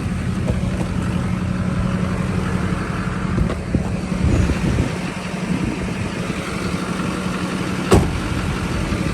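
Duramax LBZ 6.6-litre V8 turbo diesel pickup engine idling steadily, with one sharp click about eight seconds in.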